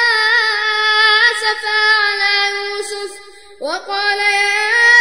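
A male voice reciting the Quran in melodic tajweed style, holding a long ornamented note that ends about three seconds in. After a brief breath the voice comes back in with a rising glide into the next phrase.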